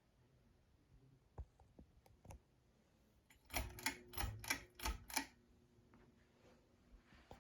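A 1994 Celestique ceiling fan: a few faint clicks, then a quick run of about seven sharp mechanical clicks in under two seconds. A faint steady low motor hum starts with the clicks and carries on after them.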